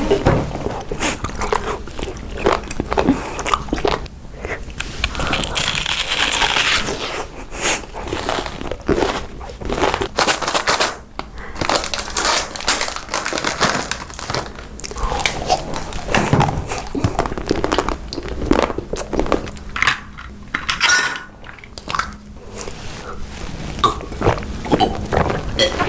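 A person biting, crunching and chewing food, in a dense run of sharp crunches and crackles.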